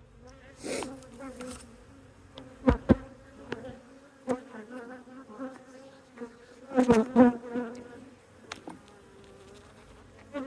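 Honey bees buzzing thickly in a steady hum; the colony is agitated. Several sharp knocks break in, in pairs about three seconds in and, loudest, about seven seconds in.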